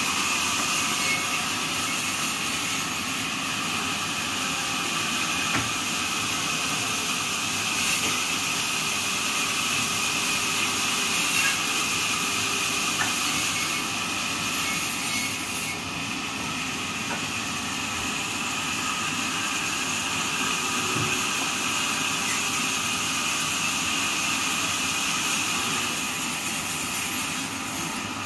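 Automatic sawmill band saw blade sharpening machine running, its grinding wheel working along the steel blade's teeth with a steady, high grinding hiss.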